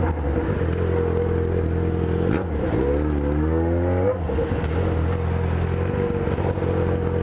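Yamaha XJ6's inline-four engine idling steadily. About two and a half seconds in, one rev climbs for roughly a second and a half, then falls back to idle.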